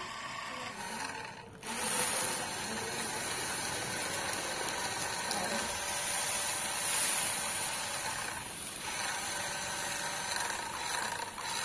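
Toy RC car's small electric motor and gears whirring steadily as it drives across a tiled floor, with two short breaks.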